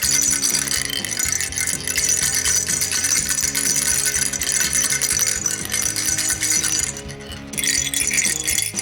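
Cat rattle toy shaken continuously, a dense fast rattling that drops out briefly about seven seconds in, over background music.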